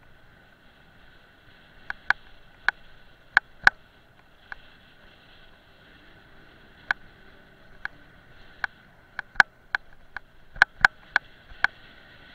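Handling noise on a handheld action camera: sharp clicks and taps at irregular intervals, some in quick pairs or clusters, over a faint steady hum.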